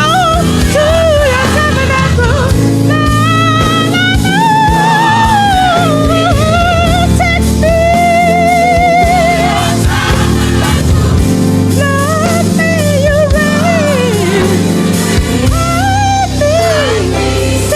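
Gospel choir song: sung melody with vibrato over a band with drums and guitar.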